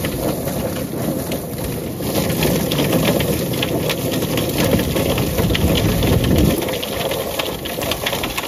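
Tub-style chicken plucker running, its spinning rubber-fingered plate tumbling scalded chickens while a garden hose sprays water into the drum. The sound is a dense rush of spraying water with rapid slapping and crackling, and its low rumble eases about six and a half seconds in.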